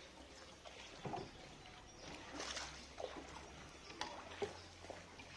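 Faint, irregular water splashing and sloshing around a small boat moving along a canal.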